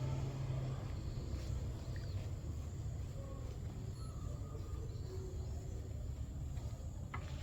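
Steady low background rumble and hum, with a few faint short chirps scattered through and a single sharp click near the end.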